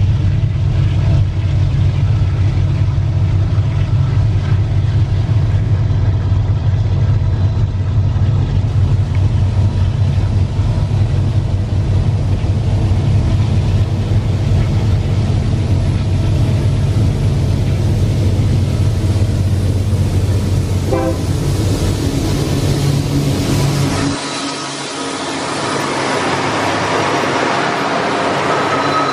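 Lead GE AC44i diesel-electric locomotives of a loaded ore train working hard up a grade, with a steady deep engine rumble. Near the end the deep rumble drops away and the locomotives pass close, with wheel-on-rail and passing-train noise rising.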